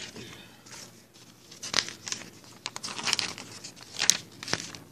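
Paper sheets rustling and crinkling as they are handled and shuffled, with several sharp crackles in the second half.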